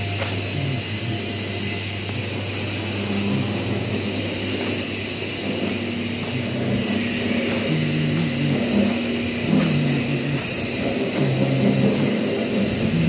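Heavy machine-shop machinery running steadily, a vertical lathe among it: a steady high whine over a low hum, with low tones that shift in pitch now and then.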